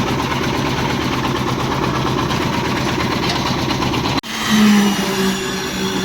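An engine running steadily. About four seconds in, the sound breaks off abruptly and a different, higher-pitched engine hum takes over.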